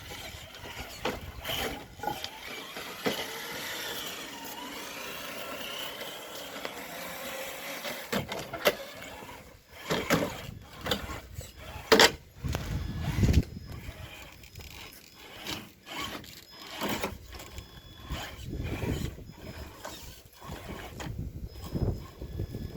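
Traxxas TRX-6 six-wheel RC crawler driving, its electric motor and drivetrain whining up and down, with frequent clicks, clatters and knocks from the truck working over the ground and a few heavier thumps.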